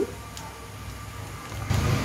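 A steady low machine hum with a faint hiss, growing louder with more hiss near the end.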